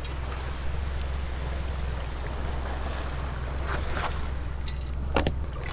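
Water lapping against a small boat's hull, with a steady low wind rumble on the microphone. A few brief knocks and rubs come through, the sharpest about five seconds in.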